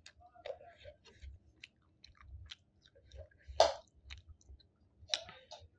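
Close-miked chewing and wet mouth smacks of someone eating rice and curry with the hands, with scattered small clicks and two sharper, louder smacks, the loudest a little past halfway.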